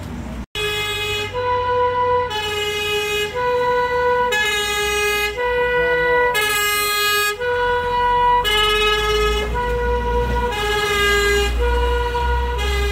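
Two-tone fire engine siren alternating between a high and a low note about once a second, with a truck engine rumbling as the vehicle passes near the end.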